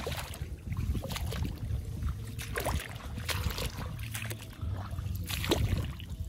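Low wind rumble on the microphone, with scattered rustles and light splashes from moving through wet rice stubble and shallow water.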